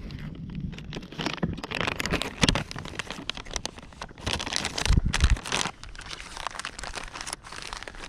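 Plastic crinkling and rustling in irregular surges as a fresh soft-plastic bait is taken out and threaded onto a bare drop-shot hook, with a couple of dull knocks in between.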